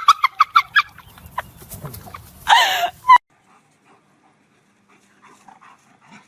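Dog yipping in a quick run of short, high calls, about eight in the first second, then a longer whining cry just before the sound cuts off sharply at about three seconds.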